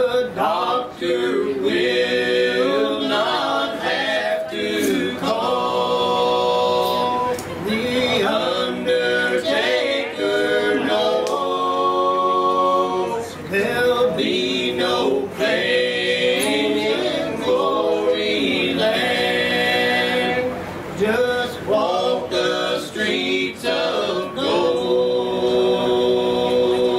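Male quartet singing an unaccompanied bluegrass gospel song in four-part harmony (lead, tenor, baritone and bass), with several long held chords.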